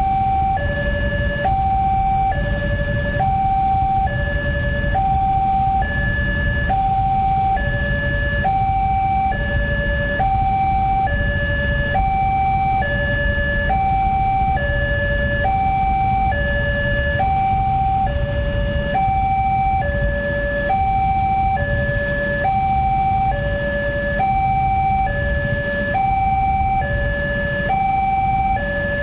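Railway level-crossing warning alarm from the loudspeaker on the crossing signal post: an electronic two-tone signal alternating between a higher and a lower tone about once a second, sounding while the crossing is closed to road traffic. A steady low rumble runs beneath it.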